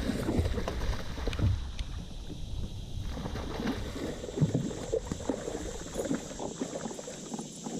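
Irregular knocks, bumps and water noise of a plastic fishing kayak and the gear in it being moved about.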